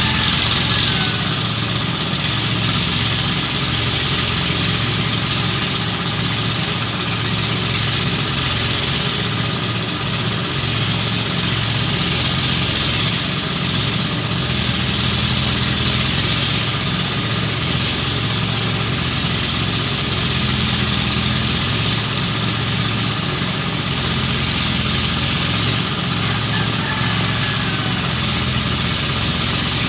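Engine running steadily at an even speed, without changes in pace.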